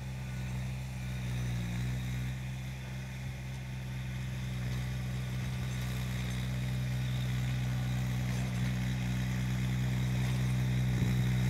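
Subcompact tractor engine running steadily while it drives a rear-mounted 52-inch chain-drive rototiller through loose soil, growing gradually louder.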